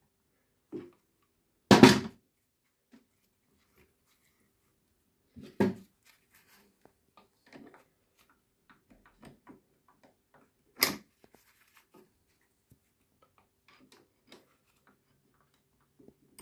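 Metal parts and pliers knocking and clicking at the back gear of a Mellor lathe headstock as it is handled: three sharp knocks a few seconds apart, with faint small clicks between.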